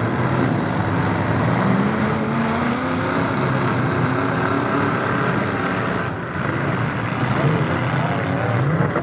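Demolition derby pickup trucks' engines running and revving hard over an even roar, their pitch climbing and dropping as the trucks drive and push against one another.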